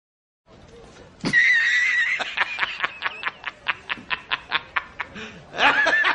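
Senegal parrot giving a wavering whistle, then a rapid run of laugh-like cackles, about six a second, that fade away. Another wavering whistle comes near the end.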